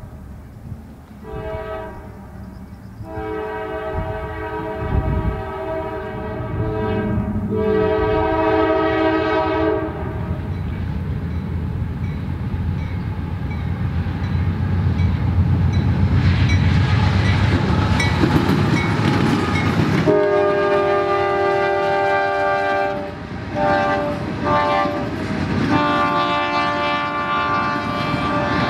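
A CSX freight locomotive's multi-chime air horn sounds a series of long and short blasts. Between blasts, the passing train's diesel engines and steel wheels on the rails run with a steady, loud rush.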